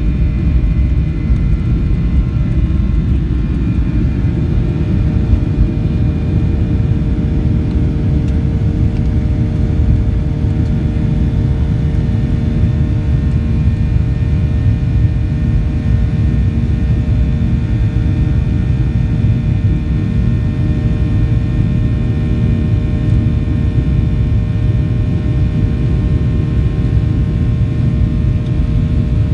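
A Boeing 737-700's CFM56-7B turbofan engines at high takeoff and climb thrust, heard from the cabin over the wing. A steady deep rumble carries a set of steady buzzsaw tones from the engine fan.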